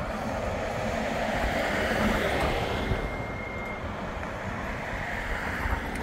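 Bombardier Flexity 2 tram standing at a stop with its onboard equipment running, heard under steady wind on the microphone and road traffic. A thin, steady high whine sounds for about a second near the middle.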